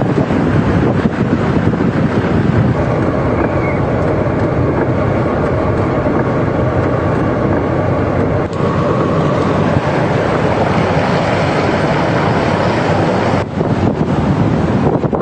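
Gale-force wind buffeting the microphone in a loud, steady rush, with brief dips about eight and a half and thirteen and a half seconds in.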